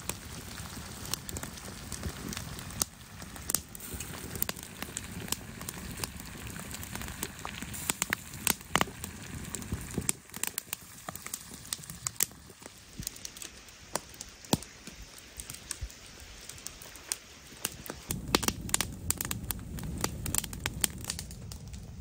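Wood campfire crackling, with frequent sharp pops over a low steady rush; the pops come thicker near the end.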